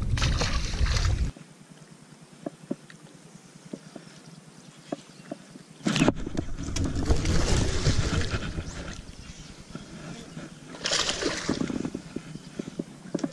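A released smallmouth bass splashes into the water, then a quiet stretch with faint clicks. From about six seconds a low rumbling noise comes and goes around the boat, and near the end a hooked bass splashes at the surface.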